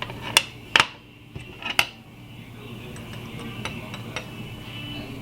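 Steel wrenches clinking against a padlock as they are fitted onto its shackle: three sharp metallic clinks in the first two seconds, then a few faint ticks over a steady low hum.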